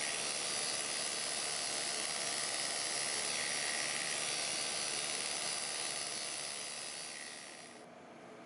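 Electric rotary tool spinning a flapper-peening flap at about 4,400 RPM, giving a steady whirring hiss. It fades near the end.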